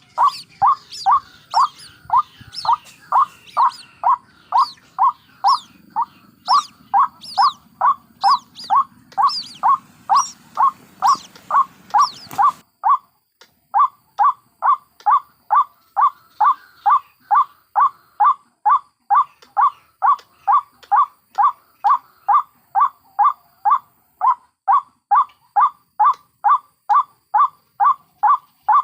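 White-breasted waterhen calling, one short note repeated quickly and evenly, about two and a half a second, with thin high calls over it that cut off abruptly about twelve seconds in.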